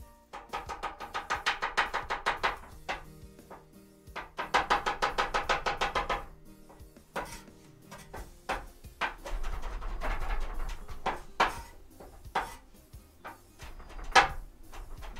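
Cleaver chopping garlic on a wooden cutting board: quick runs of rapid strokes, then single chops spaced out, over background cumbia music.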